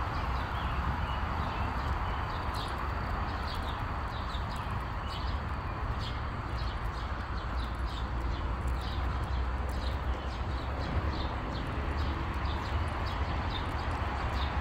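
Footsteps of someone walking at an even pace on an asphalt path, a light click about two to three times a second, over a steady low rumble.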